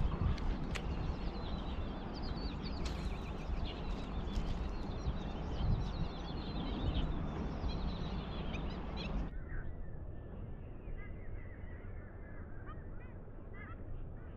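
Birds calling repeatedly in short chirps over a steady low rumble of wind on the microphone. The sound drops abruptly, thinning and quieting about nine seconds in.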